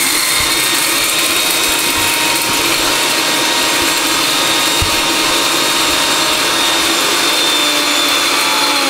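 Electric kitchen mixer grinder running steadily at full speed, grinding masala: a loud, even whir with a thin high whine over it.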